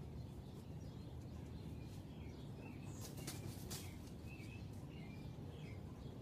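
Steady low ambient rumble with several faint, short bird chirps. About three seconds in, a brief burst of rustling and knocking as a red-tailed hawk arrives on a log.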